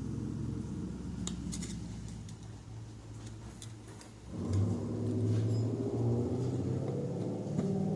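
A motor vehicle engine running steadily with a low hum. It grows louder and fuller about four seconds in, with a few light clicks early on.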